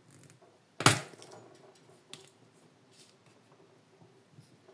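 A garlic clove crushed under the flat of a kitchen knife blade on a wooden cutting board: one sharp knock about a second in, then a faint click a second later.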